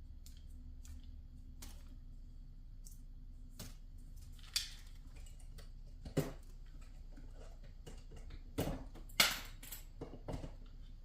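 Handling of the water heater's power supply and cables: scattered clicks and small knocks of hard plastic and plugs, with several sharper knocks in the second half.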